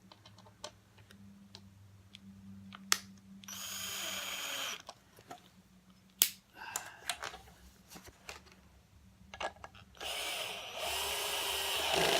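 Power screwdriver driving screws into the toggle-switch trim panel: two whirring runs, a short one about four seconds in and a longer one near the end, with small clicks and knocks of handling between.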